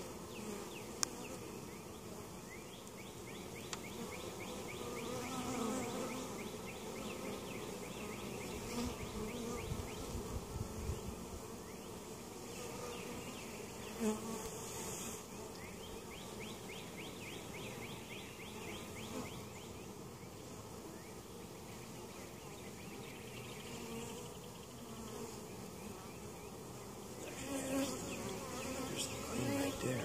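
Honey bees buzzing steadily around an open hive whose frames are being lifted out, with a single sharp knock about halfway through.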